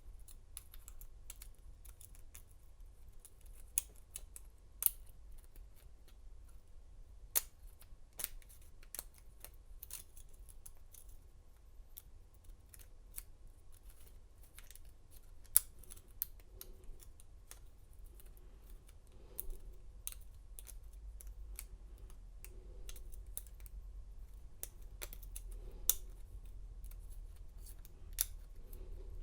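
Steel hook pick and tension wrench working the pin tumblers of a Kwikset cylinder in a Master Lock 6721 padlock during single pin picking: faint, irregular small metallic clicks and ticks, with a few sharper clicks scattered through.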